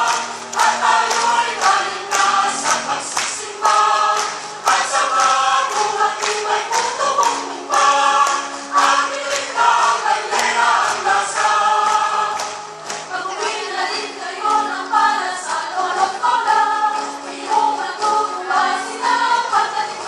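Choir singing together in several voice parts, with held low notes underneath.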